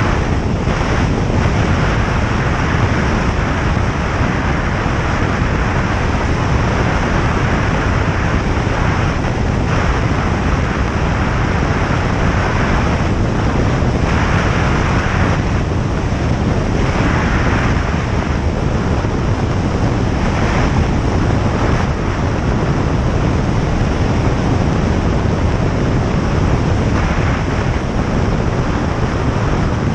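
Single-engine light airplane in flight: steady engine and propeller drone mixed with rushing airflow noise.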